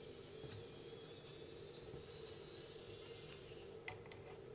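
Steady hiss lasting about five seconds that stops shortly before a single light click near the end.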